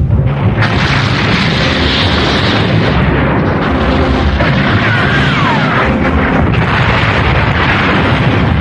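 Cartoon space-battle sound effects: continuous explosions and cannon fire over a dramatic music score, with a falling whistle-like glide about halfway through.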